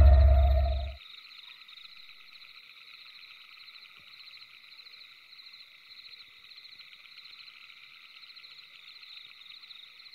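A low, dark music drone fades out about a second in, leaving a faint, steady night chorus of frogs and insects: a dense, rapid chirring trill.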